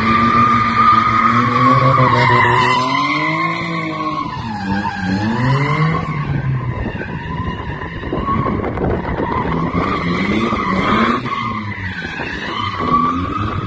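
BMW E36 drifting: its engine revs rise and fall with the throttle over a steady tyre squeal.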